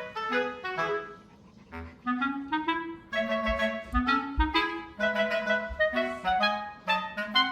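Background music: a bouncy woodwind melody of short notes, clarinet-like, with a brief pause about a second and a half in and a few low thumps around the middle.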